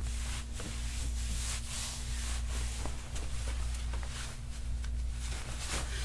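A steady low hum, with faint soft rubbing and rustling of a cloth wiped over a bare back.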